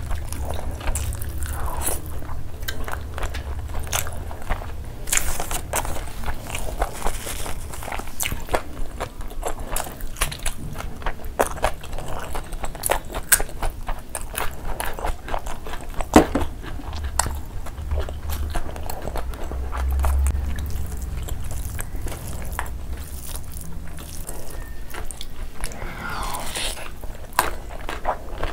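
Close-miked eating by hand: wet chewing, lip-smacking and biting on mutton curry and rice, with fingers working through the rice. It comes as a dense run of irregular smacks and clicks.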